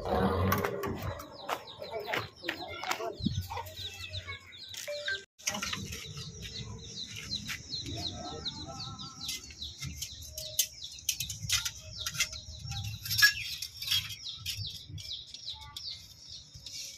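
Chickens clucking and small birds chirping, over scattered clicks and knocks.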